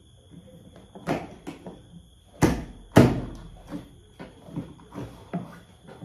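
Plastic knocks and clacks as a children's battery-operated ride-on Ducati Panigale V4 S replica is handled and its body parts fitted, with two sharper knocks about two and a half and three seconds in the loudest.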